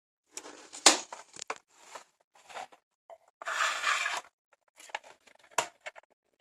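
Hands handling peripheral packaging: a series of sharp clicks and knocks, the loudest about a second in, and a crinkling rustle lasting about a second, starting about three and a half seconds in.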